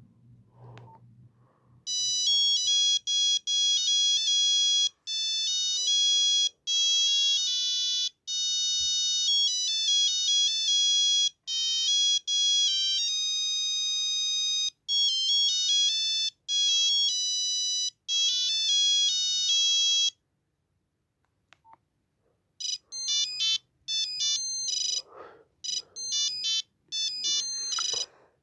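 Nokia 8265i phone playing its monophonic ringtones through its small speaker, one electronic beeping note at a time. One melody runs for about eighteen seconds and stops. After a short pause a second, choppier tune begins.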